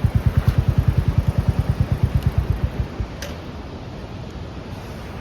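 Motorcycle engine idling with an even, rapid low thumping of about ten beats a second, then switched off about three seconds in. A click follows shortly after.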